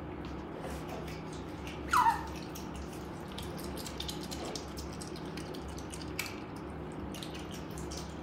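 Asian small-clawed otters eating fish from a hand, with many small wet clicks of chewing; about two seconds in one gives a short, loud squeak that falls in pitch. A steady low hum lies underneath.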